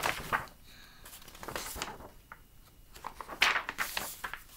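Paper rustling as the pages of a picture book are handled and turned: a few short rustles, the loudest about three and a half seconds in.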